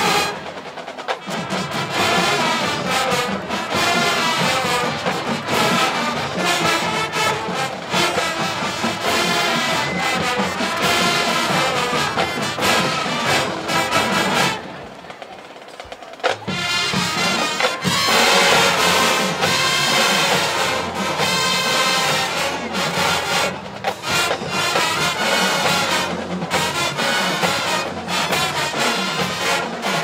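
High school marching band playing, led by its brass section. The band drops away briefly about fifteen seconds in, then the full ensemble comes back in.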